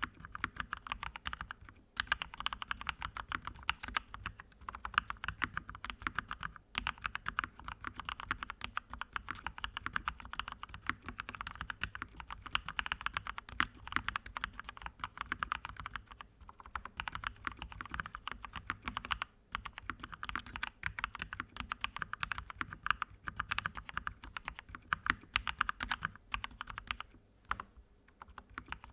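Fast, continuous typing on a computer keyboard, the keys clicking many times a second, with a few brief pauses about two, seven, nineteen and twenty-seven seconds in.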